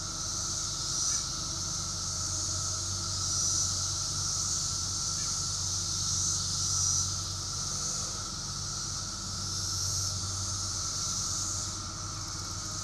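Chorus of 17-year periodical cicadas: a dense, steady high buzz that swells and fades every few seconds, with a steady lower drone beneath it.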